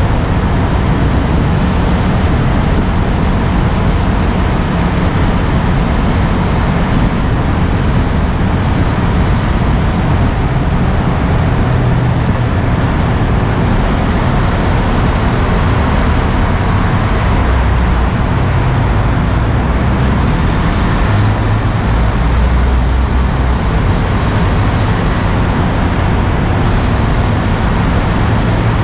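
Wind buffeting the action camera's microphone on a moving motorcycle, a steady loud rumble, with the KTM Duke 125's single-cylinder engine running at a steady cruise and tunnel traffic noise underneath.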